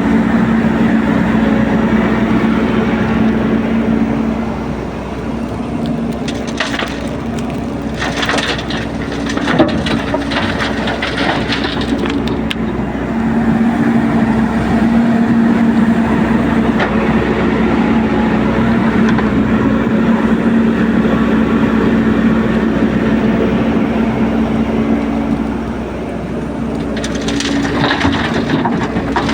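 Excavator's diesel engine running steadily, with bursts of crunching and cracking from about six to thirteen seconds in and again near the end.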